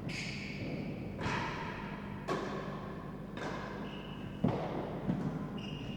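A real tennis rally: the hard ball struck by rackets and hitting the court's walls and floor, about once a second, each hit echoing. The sharpest hit comes about four and a half seconds in.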